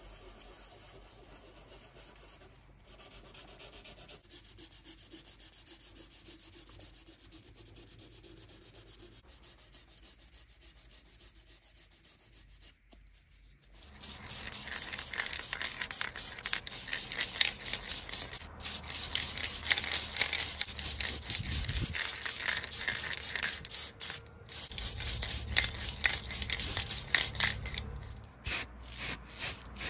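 A sanding sponge rubbed back and forth by hand over the body of a scale-model VW T1 bus, a soft scratchy rasping. About halfway through, a much louder, fast-pulsing hiss takes over.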